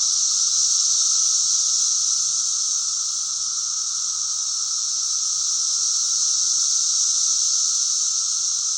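Loud, steady chorus of Brood XIV 17-year periodical cicadas, a continuous high shrill drone with a lower buzzing band beneath it.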